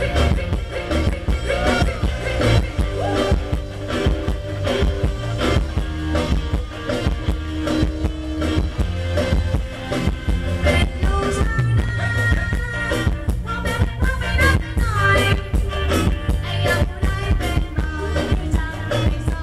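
Live band playing Thai ramwong dance music loudly through big PA speakers: a steady beat, heavy bass and a singer's voice over the melody.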